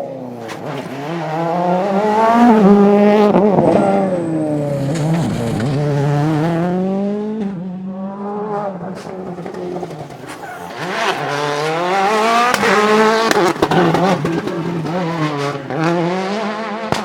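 Rally car engine revving hard and dropping back again and again as the car brakes, accelerates and shifts through the gears on a stage, loud, with two loudest stretches.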